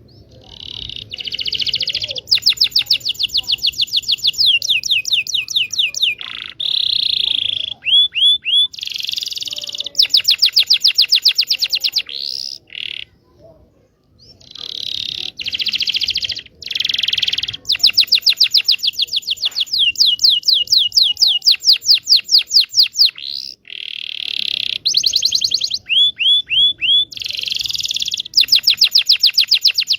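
Domestic canary singing a long, fast song of rapid trills and repeated high notes, in phrases a few seconds long separated by short pauses.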